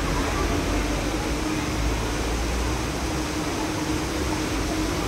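Steady splashing of a large plaza fountain's water jets, with a low rumble underneath.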